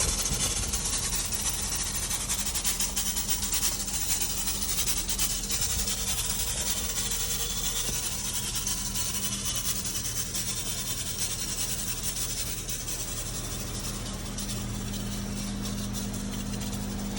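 Disinfectant fogging machine running: a steady motor hum under a continuous spray hiss, the hum growing a little stronger near the end.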